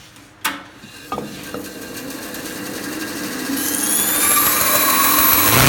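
A couple of knocks of wood being handled, then a band saw running and growing steadily louder, a high whine coming in partway through and a low hum rising in pitch near the end.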